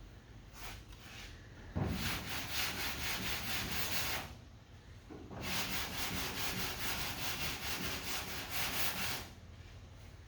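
Sanding block with sandpaper being rubbed back and forth over lacquer primer on auto bodywork (block-sanding the primer over a filler repair to find low spots), in quick rhythmic strokes. Two spells of sanding, one starting about 2 s in and a longer one from about 5 s in, stopping near the end.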